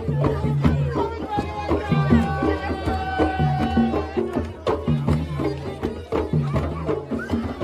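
Background music in a Middle Eastern folk style: hand drums keeping a steady beat under a melody on a pitched instrument, which holds one long note about halfway through.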